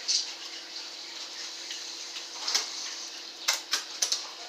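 Wet, sticky eating sounds: fried chicken in a hot-sauce-and-honey glaze being chewed, with a handful of short sharp smacks. A faint steady hum runs underneath.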